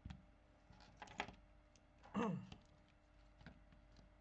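Small clicks and taps of fingers handling an opened iPhone X's parts and pressing its flex connectors, with a cluster of clicks about a second in and a short squeak falling in pitch about two seconds in.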